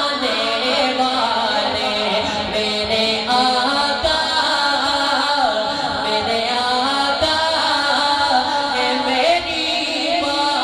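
A man singing a naat, an Urdu devotional song, in long wavering held notes amplified through a microphone, over a steady low drone.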